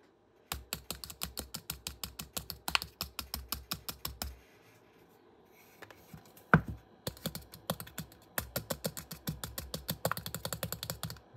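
Rapid light tapping on a loudspeaker cone, about eight taps a second, in two runs with a pause and one sharper knock between them. The taps drive the speaker as a generator to feed the transmitter.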